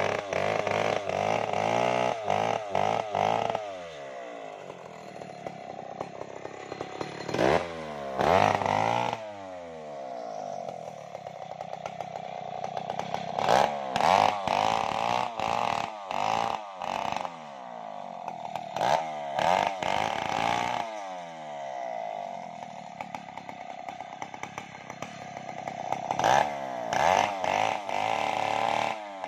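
Stihl 070 two-stroke chainsaw ripping along a kenanga log, revving high in repeated bursts while the chain cuts and dropping back toward idle between them, its pitch falling each time the throttle is released.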